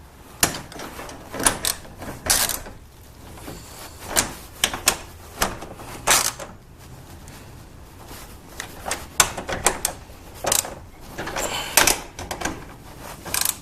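Hand-tightening the screws of a steel garage door hinge: irregular metallic clicks and short scrapes of the tool turning the screws, in small clusters with pauses between.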